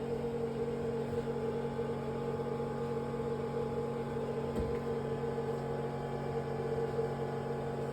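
Steady electrical hum with several fixed tones from a powered-up BGA rework station during optical alignment of the chip.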